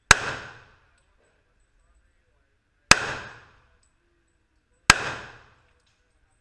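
Three single gunshots about two seconds apart, each a sharp crack with a short echoing tail.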